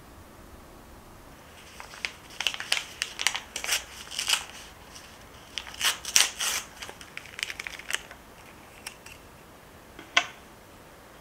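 Paper drip-bag coffee filter being torn open and unfolded, crisp crinkling and tearing in two bursts of rapid crackles, then a single sharp click near the end as it is set on the mug.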